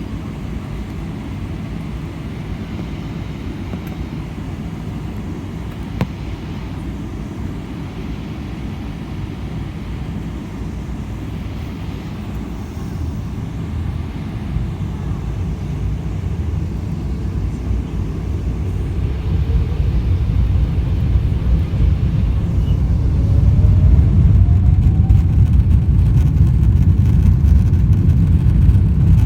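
Steady low rumble of a moving vehicle, growing louder over about ten seconds in the second half, with one sharp click about a quarter of the way in.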